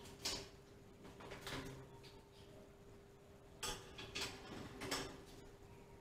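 Scattered light metallic clinks and knocks, about five over a few seconds, from a moped exhaust pipe being handled and offered up to the bike's frame, over a faint steady hum.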